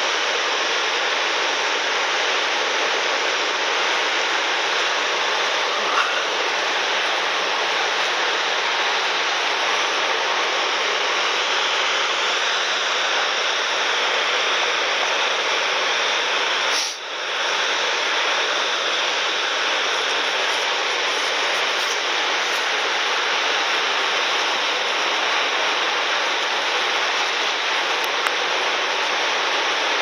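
Steady roar of falling water from Gullfoss waterfall, dipping briefly about halfway through.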